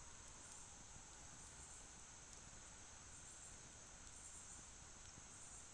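Near silence, with a faint steady high-pitched insect chorus.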